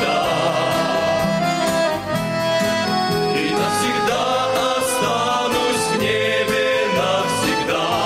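A men's group singing a hymn in several voices over sustained instrumental accompaniment, with held chords throughout and a new sung line starting near the end.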